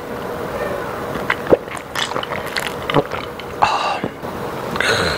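Close-miked mouth sounds of eating and drinking: swallowing from an iced drink and chewing, with scattered short wet clicks and a couple of brief breathy exhales.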